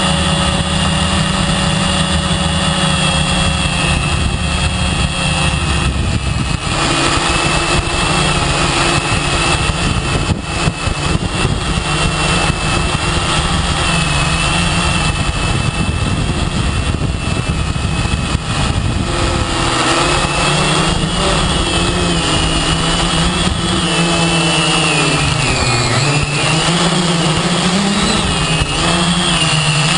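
Quadcopter's electric motors and propellers whining steadily, heard from the camera mounted on the craft, over a broad rushing noise. The motor pitch wavers and shifts up and down in the last third as the craft manoeuvres.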